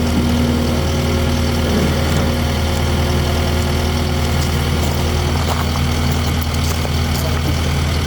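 Skid steer engine idling steadily, an even low hum.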